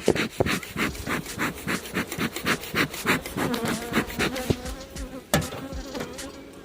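Honey bees buzzing close around an opened hive. Over the buzzing comes a run of quick rasping strokes, about three a second, and one sharp knock about five seconds in.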